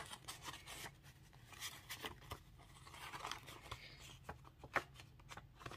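Faint rustling of paper banknotes and crinkling of a clear plastic cash-envelope sleeve as bills are pulled out and handled, with a few sharper ticks in the second half.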